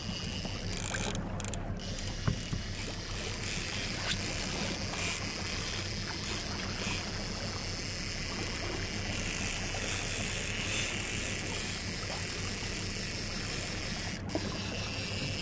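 Boat's outboard motor running steadily at trolling speed, with a low even hum and a wash of water and wind noise.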